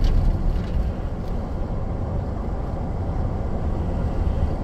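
Steady low rumble of a pickup truck on the move, heard from inside the cab: engine, tyre and wind noise as it drives along a paved road.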